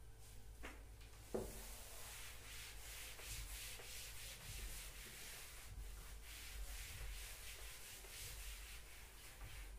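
Cloth wiping chalk off a blackboard in quick repeated strokes, a faint steady scrubbing rub. Two light knocks come in the first second and a half, before the wiping settles in.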